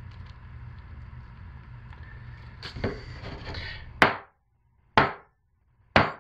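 A soap loaf mold knocked down onto a stone countertop three times, about once a second: sharp thumps with short decays.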